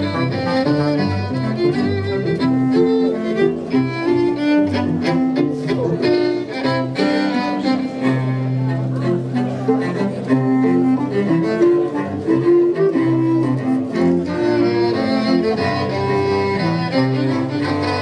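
Bowed string instruments, cello and violin, playing a piece live, with quickly moving notes over a low line that holds one long note midway through.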